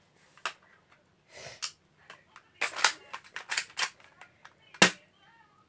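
BB gun being loaded and worked by hand: a run of sharp clicks and clacks, with one loud snap about five seconds in, as another BB is pushed in to try to clear a jam.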